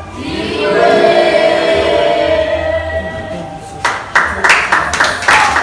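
A group of voices singing gospel-style, holding a long note together. About four seconds in, quick hand clapping and louder singing break in.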